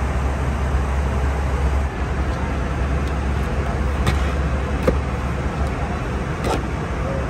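Steady cabin noise of an Airbus A320 in flight: the even rush of airflow and engines, strongest in the low end, with a few faint clicks in the second half.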